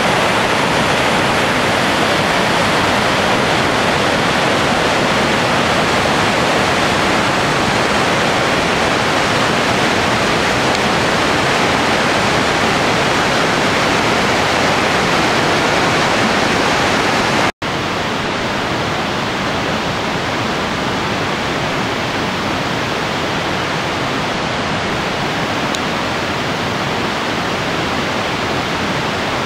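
Merced River whitewater running high with spring snowmelt, a loud, steady rush of tumbling water. About 17 seconds in the sound drops out for an instant, then carries on slightly quieter.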